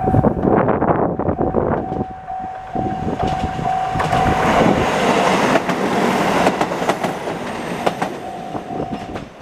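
Level-crossing warning bell ringing over and over while a train passes over the crossing, its wheels clacking over the rail joints. The train is loudest midway, and the bell is heard clearly again near the end.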